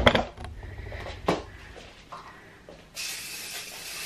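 Aerosol can of Fabulosa foam freshener being sprayed in one long, steady hiss that starts suddenly about three seconds in. Before it, a few sharp knocks.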